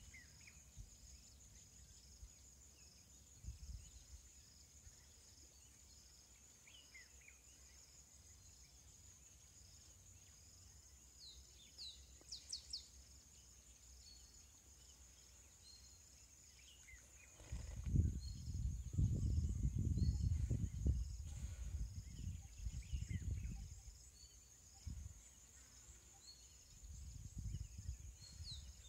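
Steady high insect trilling with scattered short bird chirps. A little past halfway, several seconds of loud, rough, low rumbling take over, with a shorter return near the end.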